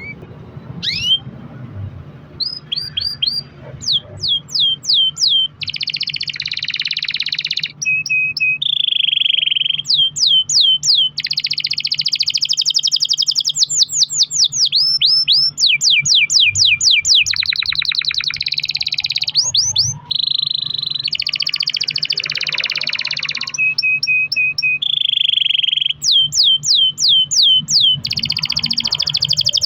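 Canary singing a long, unbroken song of rolls: phrases of fast repeated sweeping notes alternate with dense buzzing trills, each phrase lasting a second or two before the next begins.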